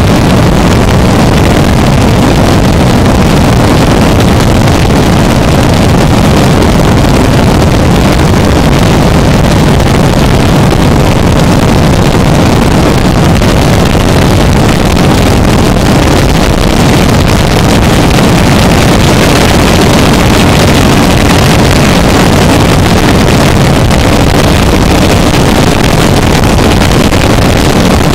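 Harsh noise music: an unbroken, very loud wall of distorted noise, heaviest in the low end, with no rhythm or pauses.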